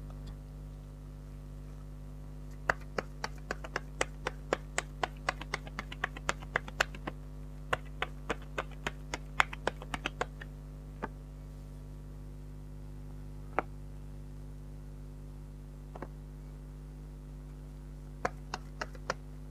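Tarot cards being handled: a quick run of sharp card clicks and taps, about three or four a second for several seconds, then a few scattered ones and a short cluster near the end. A steady low electrical hum runs underneath.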